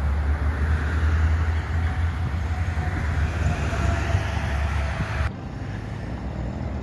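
Heavy highway traffic: trucks and buses passing with a steady deep diesel rumble and tyre noise. It cuts off abruptly about five seconds in, leaving a quieter steady background hum.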